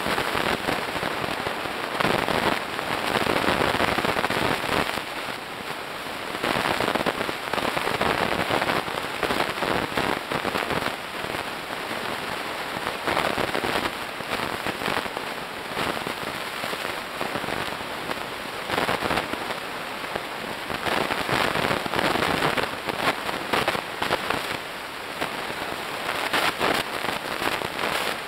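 Underwater noise picked up by a submerged camera: a dense crackling hiss that swells and fades every few seconds.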